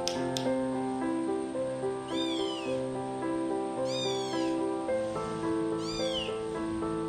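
Kitten meowing three times, high-pitched arching calls about two seconds apart, over background music with steady sustained notes.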